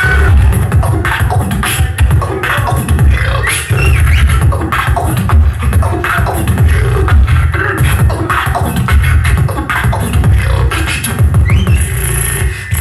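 Live solo beatboxing amplified through a microphone: a fast, dense beat of heavy bass and sharp snare-like hits, with a few short sliding tones over it.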